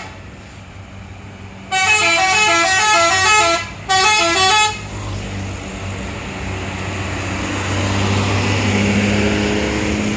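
A bus's Basuri telolet horn playing a quick stepping multi-note tune for about three seconds, with a short break near its end. Then the bus's engine runs louder as it goes by, with a steady low drone joining in near the end.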